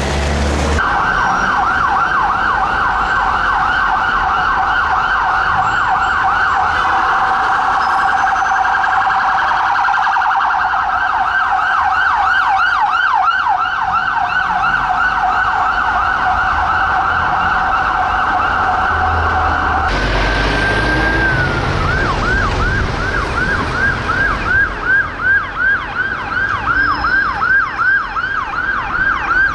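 Emergency vehicle sirens on a fast yelp, the pitch sweeping up and down several times a second. About two-thirds of the way through a different siren takes over, holding a high note briefly and then yelping in quick downward swoops.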